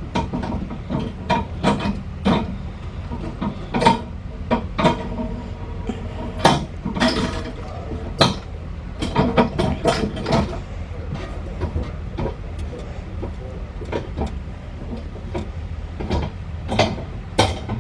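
Irregular metallic clicks and clunks over a steady low hum as an engine support bar is let down. The engine's weight is being released onto its motor mount.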